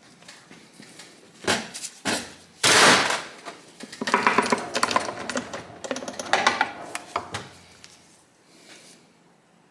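Metal engine parts and hand tools knocking and clinking during dismantling of a small motorcycle engine's clutch side: scattered clicks, one loud clunk about three seconds in, then a few seconds of clattering with some metallic ringing.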